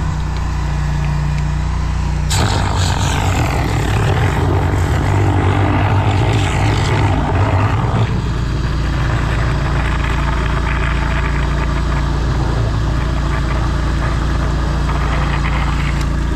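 High-pressure drain jetter running, its engine humming steadily under the rush and hiss of water as the jetter hose is pushed up a stormwater pipe blocked with tree roots. The water noise swells from about two seconds in and eases off around eight seconds.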